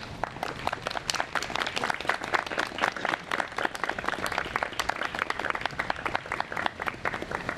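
Audience applauding: many hands clapping, starting at once and thinning a little near the end.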